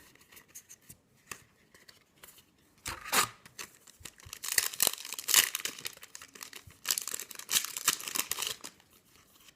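Foil wrapper of a Yu-Gi-Oh trading-card booster pack being torn open and crinkled by hand, in several separate stretches of crackling rustle: about three seconds in, again a little past the middle, and near the end.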